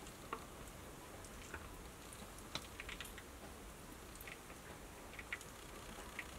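Faint, irregular clicks as a black-tailed cribo works its jaws over a raw chicken breast, swallowing it. A steady low fan hum runs underneath.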